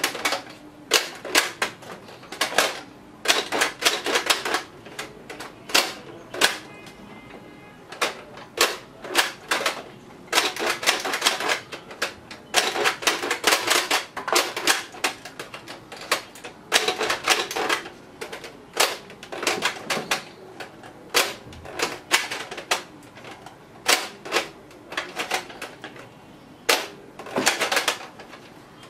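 Bursts of sharp plastic clicks from a toy foam-dart gatling blaster as its rotating dart drum is handled and emptied, several quick clicks at a time with short gaps between.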